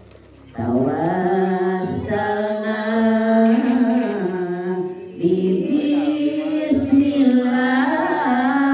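Sundanese kacapi suling music with a vocalist singing long, wavering held notes in the tembang style. The singing dips briefly about half a second in and again around five seconds in.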